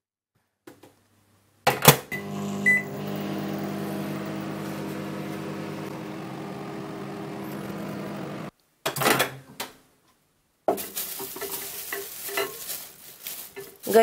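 Microwave oven running with a steady hum for about six seconds, heating a soaped apron sealed loosely in a plastic bag. A loud clack and a short beep come just before the hum starts. After it cuts off there are clicks, then handling noises near the end.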